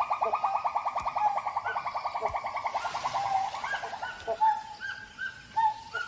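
Gibbon calling: a fast, even run of hoots, about seven a second, sinking slightly in pitch, that breaks up about four seconds in into separate short rising hoots.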